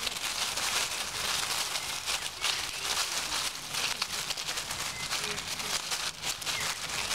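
Dry fallen leaves crackling and rustling without a break as two European moles scuffle and wrestle in the leaf litter.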